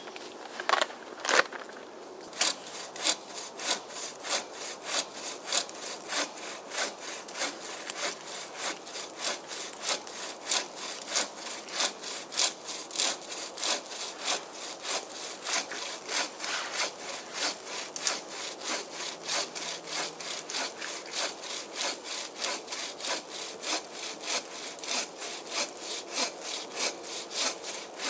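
Wood being sawn by hand in steady back-and-forth strokes, about two or three a second.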